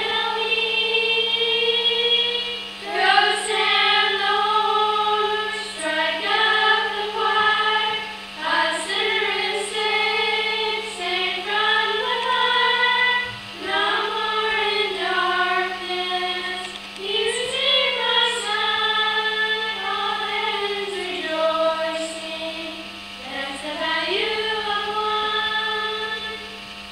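A small group of children singing a song together on stage, one phrase after another, with a steady low hum underneath.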